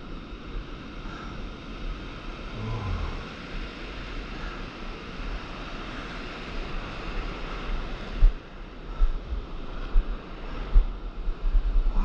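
Shallow surf washing in: whitewater and foam rushing over the sand close to the microphone. From about eight seconds in, sharp low thumps of wind or water hit the microphone several times.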